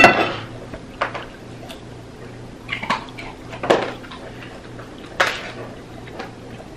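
Cutlery clinking and scraping against dinner plates during a meal: several separate sharp clinks spread a second or more apart.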